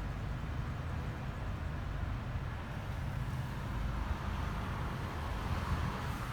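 2017 Toyota Corolla running with the A/C on, with a steady low rattle that comes on when the air conditioning is switched on.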